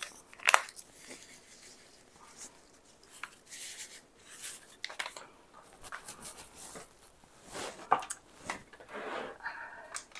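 Paper packet of Jell-O powder being handled, crinkled and torn open, with scattered rustles and a few sharp clicks.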